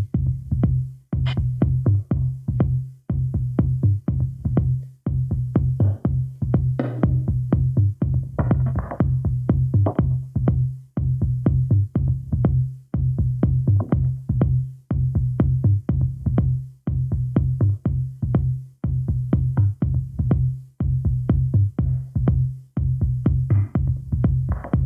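Techno DJ mix: a steady, fast drum-machine kick under a heavy bassline, with synth stabs over it.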